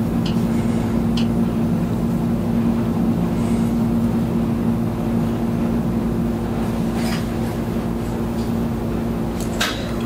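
A steady, low mechanical hum holding two pitches over a low rumble, with a few faint clicks.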